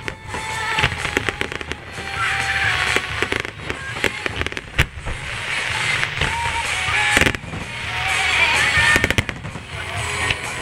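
Fireworks display: aerial shells bursting overhead with many sharp bangs in quick succession.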